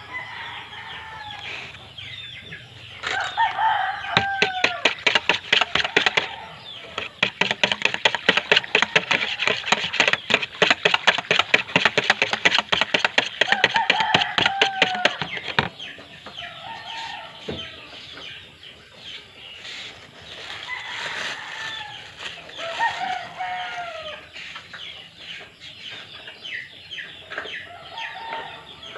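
Wire whisk beating pancake batter in a plastic bowl, a long run of rapid clicking strokes that stops about halfway through. A rooster crows several times in the background.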